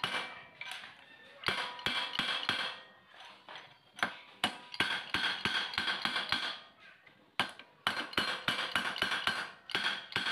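Hammer tapping a steel steering-head bearing cup into a motorcycle frame's head tube through an old cup laid on top, so the new one seats evenly: quick runs of metal-on-metal taps with a ringing tone, pausing between runs.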